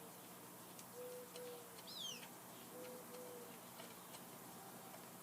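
Birds calling faintly: a low two-note call repeated about every one and a half to two seconds, and a quick high falling chirp twice. Faint scattered clicks run beneath.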